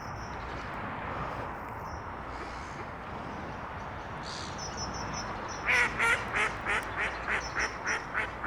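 A gull's laughing call: a run of short, repeated calls, about three a second, starting about six seconds in, over a steady outdoor background.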